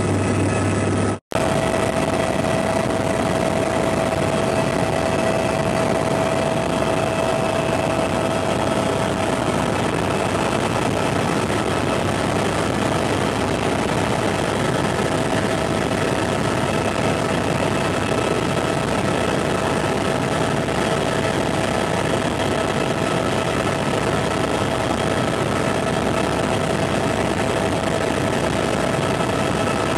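Helicopter in flight heard from inside the cabin: steady engine and rotor noise with a steady whine over it. The sound cuts out for an instant about a second in.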